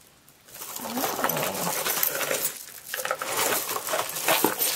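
Costume jewelry, such as strands of beads and metal chains, clinking and rattling as it is rummaged through by hand. There are two spells of rapid small clinks, starting about half a second in, with a brief pause between them.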